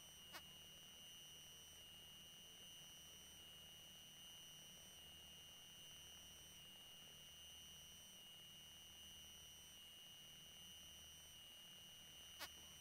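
Near silence: a faint steady high-pitched electronic whine with a low hum under it, broken by a faint click just after the start and another near the end.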